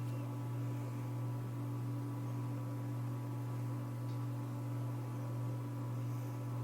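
Emerson ceiling fan running, its motor giving a steady low hum.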